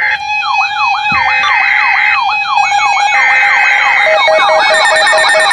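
Emergency alert attention tones for a severe thunderstorm warning: several electronic tones layered together, with a siren-like sweep rising about three times a second over a steady tone and an on-off tone. A faster pulsing beep joins about four seconds in, and the mix thickens.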